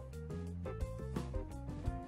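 Instrumental background music: pitched notes changing quickly over short percussive beats.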